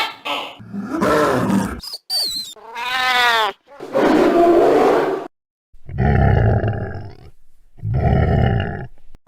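Sound-effect monster roars and growls: a string of about five separate calls, among them a wavering, pitched cry in the middle, ending with two long, deep roars.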